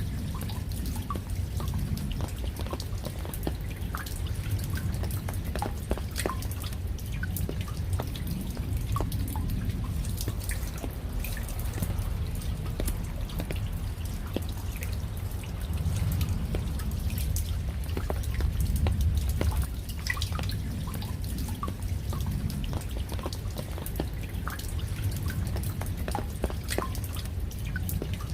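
Raindrops dripping and pattering, with scattered irregular drip ticks over a steady low rumble of rain.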